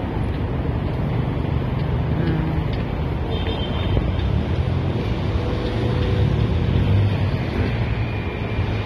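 Steady city street noise: a continuous low traffic rumble, with no single event standing out.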